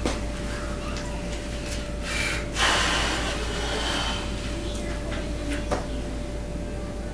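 A person's breath: a short intake about two seconds in, then a louder, longer breath out lasting about a second and a half, like a heavy sigh. A steady hum runs underneath.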